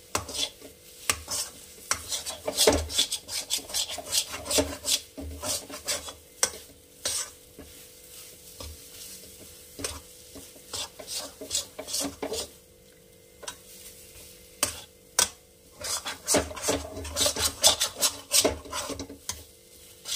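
Metal spatula scraping and stirring thick ground dried-pea (matar dal) paste around a metal kadai in irregular strokes, as the paste is dried out on the heat into a stiff lump. The strokes thin out for a few seconds in the middle and come thick and fast again near the end.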